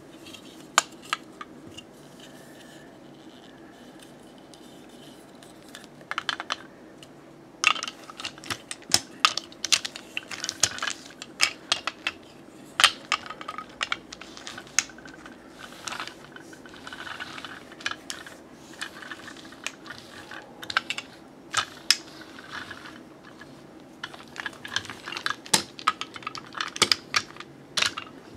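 Clicking and knocking of a wooden Eichhorn toy truck and trailer and their cargo containers being handled, lifted off and set back down, in many quick taps. A few light clicks come first, and the taps grow busy after several seconds.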